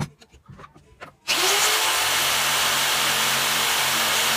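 Electric jigsaw handled with a few light knocks, then switched on about a second in: the motor spins up quickly to a steady high whine and runs as the blade cuts into a thin wooden board.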